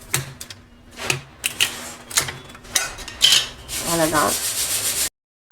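Raw crabs being cut in half: a run of short crunching, scraping cuts through the shells.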